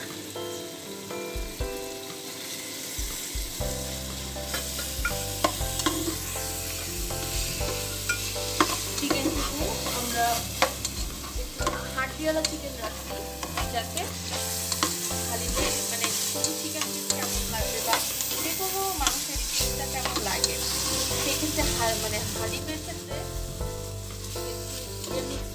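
Chicken pieces sizzling as they fry in hot spiced oil in a pan, stirred, with many short clicks against the pan.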